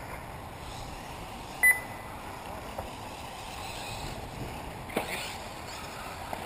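One short, sharp electronic beep about a second and a half in, over the steady outdoor hiss of electric 1/8-scale RC buggies running on the track; a single sharp knock near the end.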